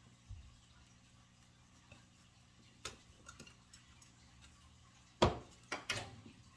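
A few scattered sharp clicks and clatters, the loudest bunched about five seconds in, from gloved hands working on the wiring in an old ceiling light's electrical box.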